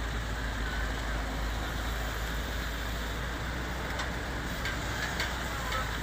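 Terex backhoe loader's diesel engine running steadily as the backhoe arm raises its bucket of soil, with a few faint knocks in the last two seconds.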